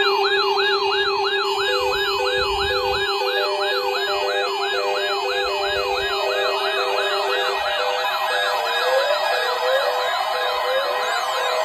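Electronic siren in a fast yelp, rising and falling about three times a second, over a steady tone that stops about seven and a half seconds in and a pulsing beep. More siren sweeps, out of step with the first, pile in over the last few seconds.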